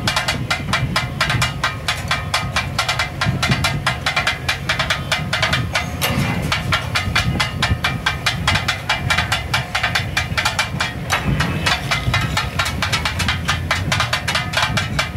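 Katakat cooking: two metal spatula-choppers clanging rapidly on a large iron griddle as they chop and fry goat brain and offal, several strikes a second in a steady rhythm. A sizzling hiss and a low steady rumble run underneath.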